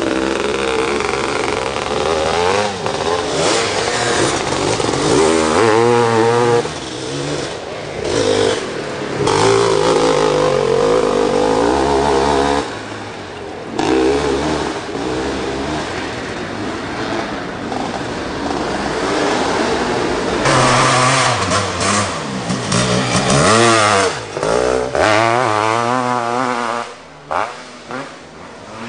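500cc two-stroke motocross motorcycles revving as several pass in turn, engine pitch rising and falling with the throttle, with brief lulls between bikes.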